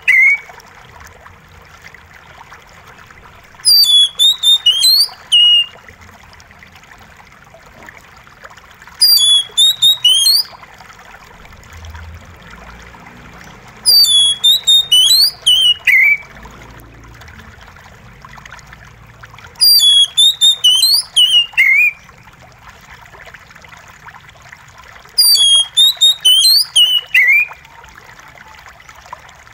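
Oriental magpie-robin singing in five bursts of quick whistled notes, each about two seconds long and roughly five and a half seconds apart, over a steady trickle of running water.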